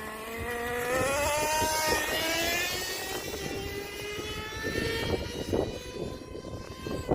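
Traxxas T-Maxx nitro RC truck's 2.5 two-stroke glow engine running at high revs with a high-pitched whine. The pitch rises over the first couple of seconds, then slowly drops.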